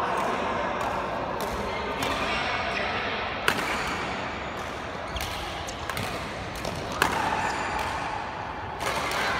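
Badminton racket strikes on a shuttlecock during a rally, echoing in a large sports hall. Two loud, sharp hits come about three and a half seconds apart, the first about three and a half seconds in and the second near seven seconds, with fainter knocks between them.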